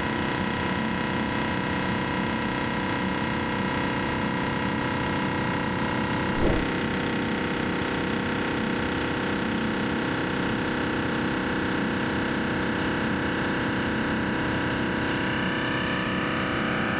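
Indexable thread mill cutting an external M48x2 thread in ductile cast iron on a CNC milling machine: a steady machining hum of many tones. A single knock comes about six and a half seconds in, and the tones glide upward near the end.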